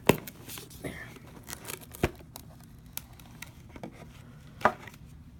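Baseball card box packaging being handled and opened by hand: light rustling and small ticks, with three sharp clicks spread through.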